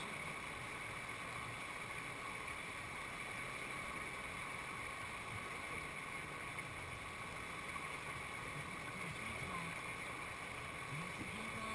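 Steady rush of whitewater pouring over a rock ledge into a river hole, heard close at the water's edge.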